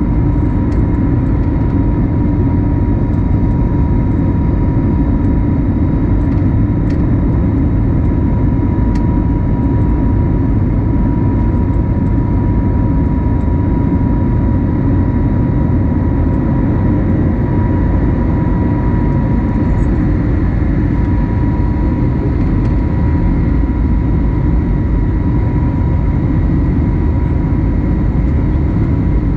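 Airbus A320neo cabin noise in flight, heard beside the wing and engine: a loud, steady, low-pitched noise of engine and airflow with a thin, steady high tone above it.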